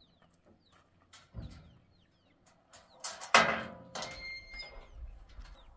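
A loud metallic clatter about three seconds in, with a brief ringing after it, as the pickup truck's steel tailgate panel is lifted and handled. A softer knock comes a little earlier, and small birds chirp throughout.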